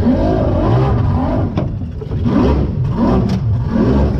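A fast boat's engine revving up and down again and again, its pitch rising and falling in quick swells, with a brief drop about two seconds in.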